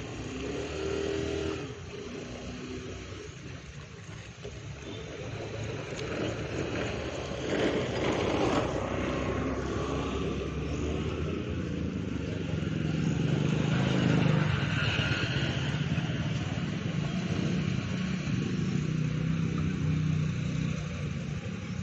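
A motor vehicle engine running close by, its low hum swelling about eight seconds in and loudest near the middle, then holding on steadily.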